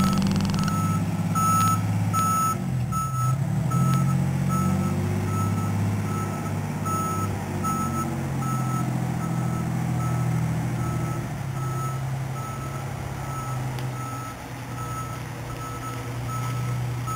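A fire truck's backup alarm beeping steadily, about two beeps a second, over the low running of a fire truck engine that rises and falls in pitch a few seconds in.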